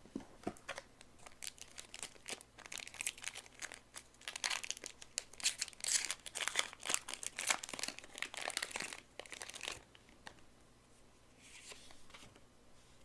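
Trading card booster pack wrapper crinkling and tearing as it is opened by hand, a dense crackle that stops suddenly about ten seconds in. A faint short rustle follows near the end.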